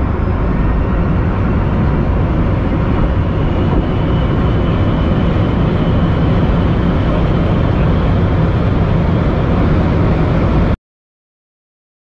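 A hypercar accelerating hard at high speed, recorded onboard: heavy, steady road and wind roar with a faint high whine slowly rising. It cuts off suddenly near the end.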